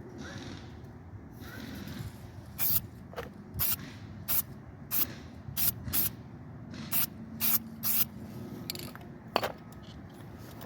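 An aerosol spray can of metallic graphite wheel paint hissing in about ten short bursts, each a fraction of a second long: light dusting passes over a repaired rim.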